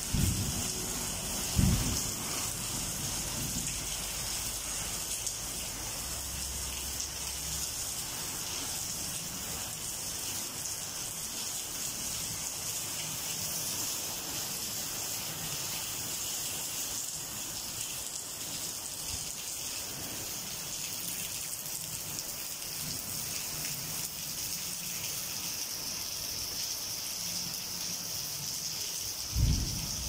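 Steady rain falling, a continuous even hiss. A few short low thumps stand out: two in the first two seconds and one near the end.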